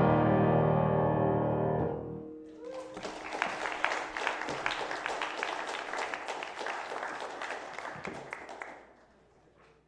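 Final chord on a grand piano ringing out and dying away, followed by about six seconds of applause that cuts off abruptly near the end.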